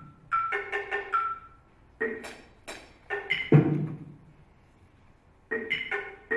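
Small tuned percussion objects on a tabletop struck with mallets in short, irregular flurries separated by pauses; each hit rings briefly at its own pitch.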